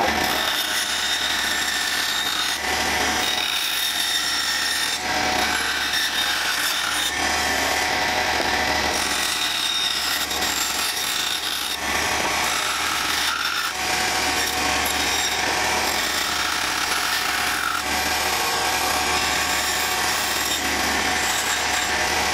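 Bandsaw running steadily, its blade cutting curved shapes out of plywood.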